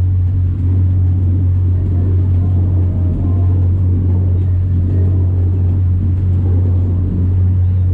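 Engine of a large tour boat running steadily while the boat cruises: a loud, unbroken low drone.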